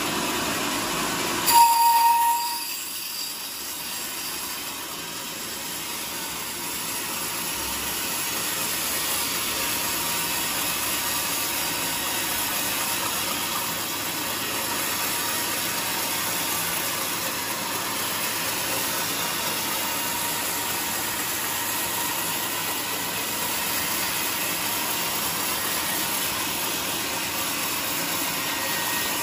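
Sawmill band saw cutting through a teak block on a moving log carriage: a brief loud squeal near the start, then a steady, even hiss of the blade running through the wood.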